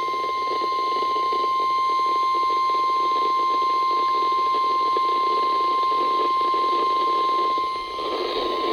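NOAA Weather Radio 1050 Hz warning alarm tone: one steady, unbroken high tone over radio hiss, the signal that a severe thunderstorm warning broadcast follows.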